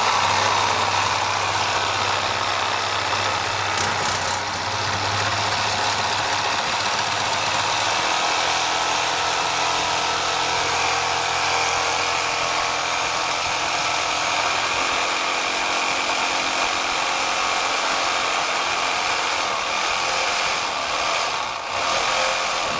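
Milwaukee Sawzall corded reciprocating saw running steadily for a long cut through PVC pipe. Its motor note shifts twice along the way.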